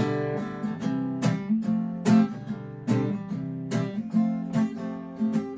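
Background acoustic guitar music: picked notes about twice a second over ringing chords.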